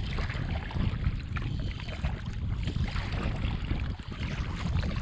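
Steady wind rumble on the microphone over light water and paddle sounds from a kayak on a creek.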